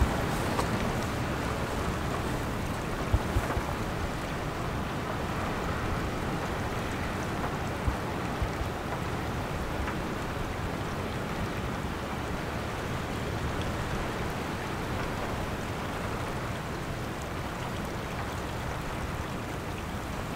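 Distant freight train's 3TE10M diesel locomotives, with their two-stroke diesel engines, working under load as a steady low rumble, mixed with wind noise on the microphone and a few brief thumps.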